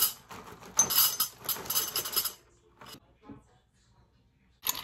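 Cream-filled cereal pieces poured from the bag into a ceramic bowl, a dry rattling patter lasting about a second and a half. A second burst of clatter starts just before the end.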